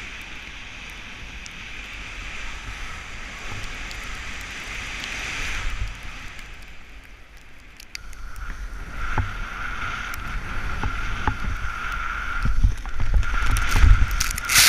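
A snowboard sliding and hissing through deep powder snow, with wind rumbling on a helmet-mounted microphone. From about eight seconds in, a steady high whistle runs under the snow noise, and the rumbling grows louder near the end as snow sprays up.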